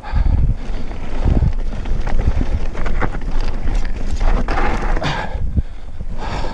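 Wind buffeting the microphone over the rumble and rattle of a Cube Stereo mountain bike riding fast down a dirt singletrack, with repeated thuds as it hits bumps.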